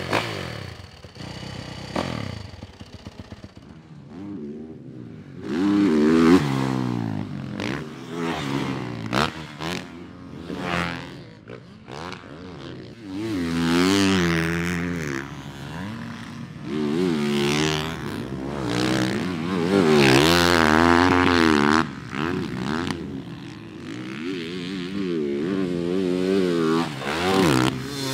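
Motocross dirt bikes running laps on a track, their engines revving up and down through the gears as they pass one after another. The loudest passes come about 6 seconds in and again around 20 seconds.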